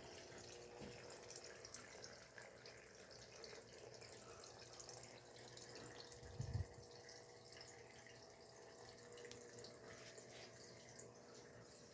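Near silence: room tone with a faint steady electrical hum and one soft low thump about six and a half seconds in.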